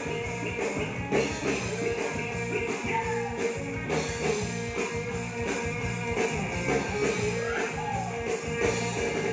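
Live rock band playing: a man singing into a microphone over electric guitar, bass and a drum kit keeping a steady beat.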